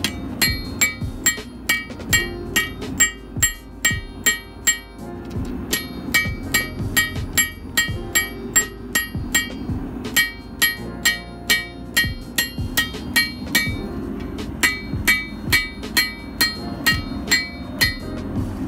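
Hand forging: a 1 kg hammer striking a hot railroad spike on a steel anvil, about three blows a second, each blow ringing. The blows come in four runs with short pauses between them.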